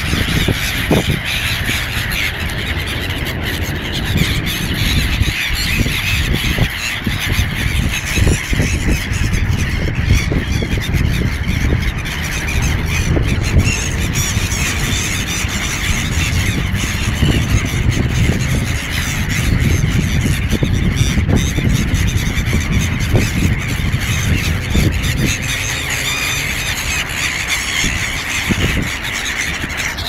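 A large flock of gulls calling over one another in a continuous, dense chorus of squawks. A low rumble runs underneath.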